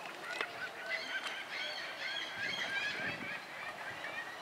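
A flock of geese honking, many short calls overlapping. The calls start about a second in and thin out near the end.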